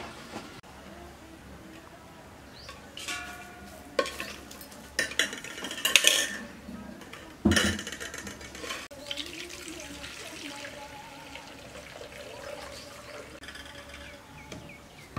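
Stainless steel pots and a steel strainer clinking and clanking as they are handled and set down: a handful of sharp metallic knocks with brief ringing, grouped between about three and eight seconds in.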